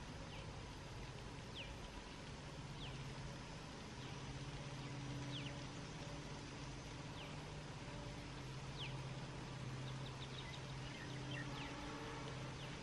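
Distant twin EMD diesel freight locomotives approaching under power: a low, steady engine drone that swells and fades. Over it a bird gives a short falling whistle every second or two, with several in quick succession near the end.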